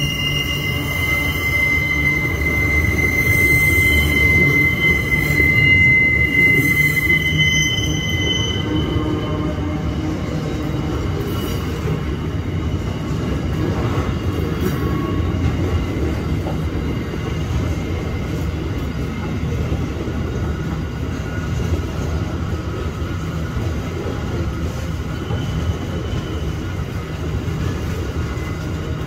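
Freight train of steel-carrying flat wagons rolling past on a curve, with a steady low rumble of wheels on rail. High-pitched wheel squeal rings out over it for the first eight seconds or so, then fades, returning faintly near the end.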